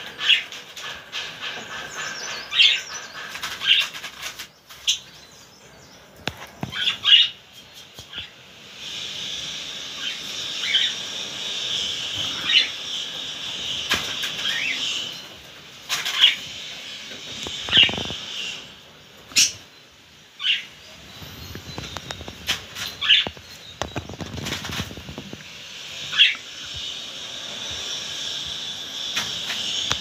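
Budgerigars calling: short, sharp chirps every second or two over stretches of steady high warbling chatter, with a few wing flutters.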